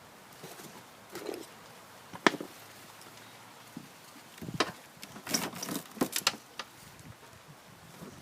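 Scattered clicks, knocks and scrapes of hand work on a lawn mower's drive axle while tangled build-up is worked loose. There is a sharp click about two seconds in and a cluster of knocks and scrapes around the middle.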